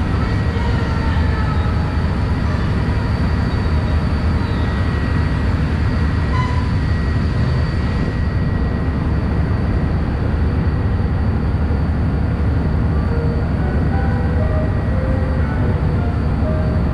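A ferry boat under way: a steady, loud low engine rumble with the rush of wind and water. Faint steady high whines sit above it.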